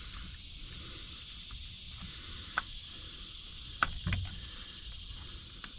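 A few light clicks and a dull knock over a steady high hiss: parts and caps being handled under the hood during an oil change.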